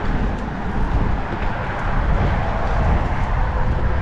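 Steady traffic noise from the highway bridge alongside, mixed with a low, unsteady wind rumble on the microphone.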